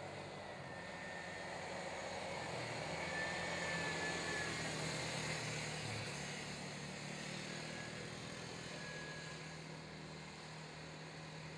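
Small engines of two youth quad ATVs running together. The sound grows louder up to about four seconds in, then fades.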